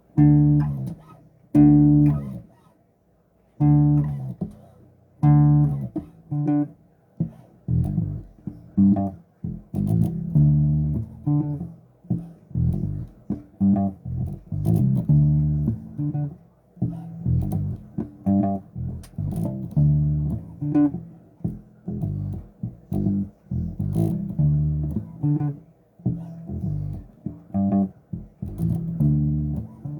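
Electric bass guitar played solo, a line of plucked notes: a few long, ringing notes at first, then a faster, busier run.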